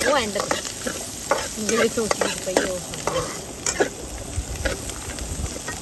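A metal spatula stirring and scraping in a steel wok in quick irregular strokes, with diced carrots and capsicum sizzling in hot oil.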